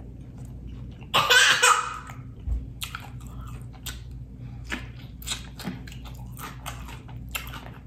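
Close-miked chewing of a pickled pepperoncini pepper: irregular wet mouth clicks and smacks over several seconds. About a second in there is a short loud voice sound.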